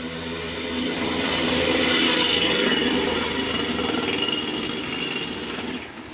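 A motor engine running close by with a rough, buzzing tone. It grows louder over the first couple of seconds and drops away sharply near the end.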